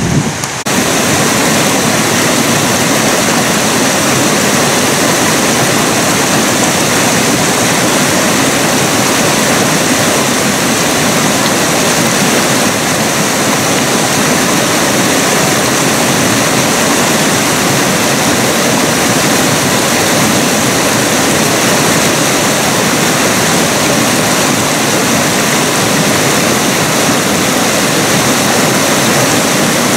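Fast mountain creek rushing over rocks in whitewater: a steady, loud wash of running water that cuts in less than a second in.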